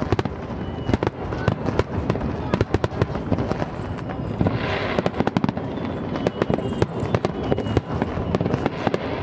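Aerial fireworks going off in a dense, rapid barrage of bangs and crackles, with a brief rushing hiss about four and a half seconds in.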